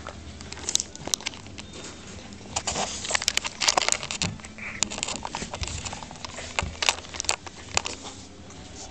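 French bulldog tussling with a large plush toy on carpet: irregular scuffling and rustling with many sharp clicks, busiest in the middle.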